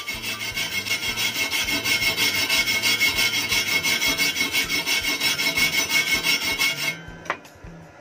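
MIG welder arc crackling steadily in rapid pulses as a bead is laid, then cutting off suddenly about seven seconds in, followed by a single click.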